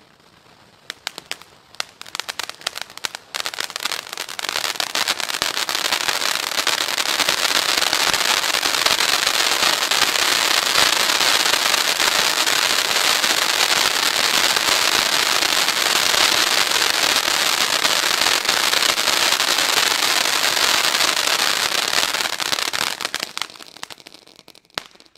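Ground fountain firework spraying sparks with a steady dense crackling hiss. It starts as scattered pops, builds to full strength over the first few seconds, holds, and dies away near the end as the fountain burns out.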